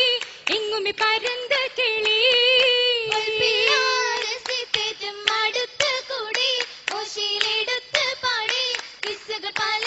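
Oppana song: a group of high, girls' voices singing a Mappila melody together, with sharp hand claps from the dancers falling in time with the song about twice a second.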